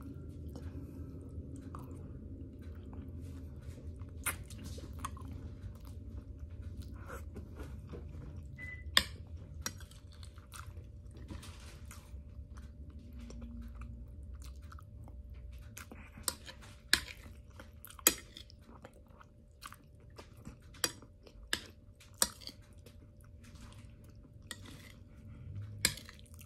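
Close-up chewing and crunching of roast pork and rice, with sharp clicks every few seconds.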